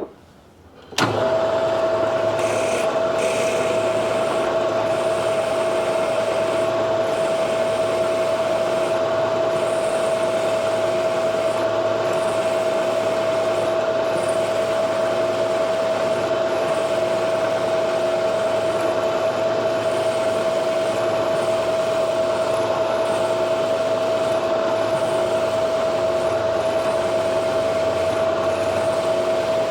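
Milling machine starting up about a second in and running steadily with a high, even whine, as a number 7 drill bores a hole in a steel drill rod.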